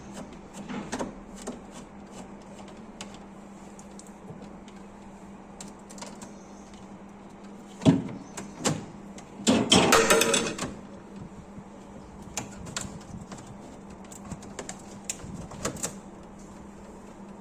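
Scattered clicks and knocks of hand tools on refrigerator parts during a repair, with a sharp knock about eight seconds in and a loud rasping burst lasting about a second just after, over a steady low hum.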